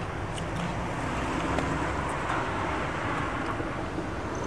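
Steady city-street traffic noise, an even rush with no distinct events.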